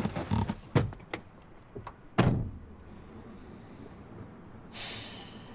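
A few sharp clicks and knocks, then a car door shutting with a solid thump about two seconds in. A low steady hum follows, with a short rushing hiss near the end.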